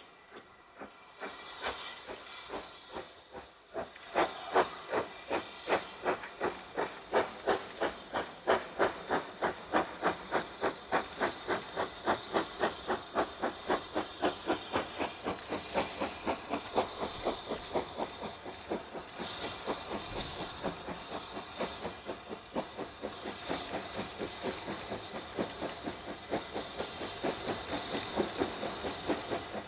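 BR Standard Class 9F 2-10-0 steam locomotive 92134 working hard with a goods train: a regular, even chuff of exhaust beats that starts a few seconds in, over the hiss of steam.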